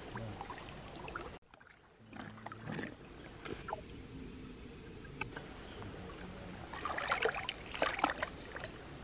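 A hand sloshing and splashing in shallow stream water while feeling along the stony bottom for snails, with the loudest splashing about seven to eight seconds in. A brief drop to near silence comes about one and a half seconds in.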